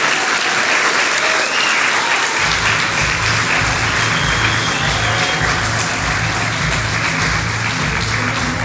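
Congregation applauding the newly married couple. About two seconds in, recessional music with a steady low beat starts up under the clapping.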